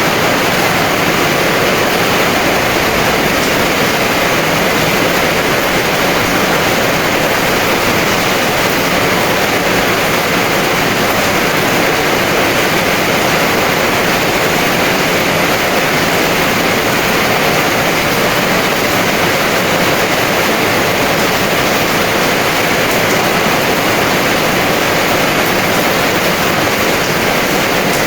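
Heavy rain pouring steadily, a dense even hiss with no separate drops or thunder.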